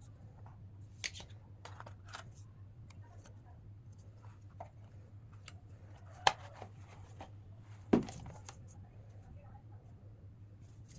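Handling of a smartphone and its packaging: small clicks, light scrapes and rustles, with two sharp taps about six and eight seconds in, over a steady low hum.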